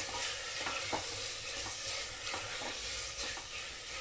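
Cubed potatoes sizzling as they fry in oil and masala in an aluminium pressure cooker, with a spatula scraping and stirring against the pot several times.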